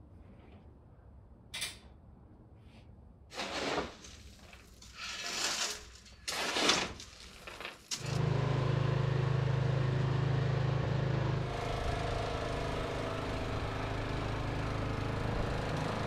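A few short scraping, rustling noises, then about halfway in a small engine running steadily, a constant low hum with a machine's even tone, easing slightly a little later.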